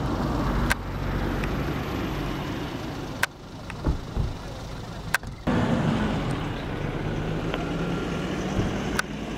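Outdoor background of a running motor vehicle engine's low, steady hum with faint voices, broken by a few sharp clicks.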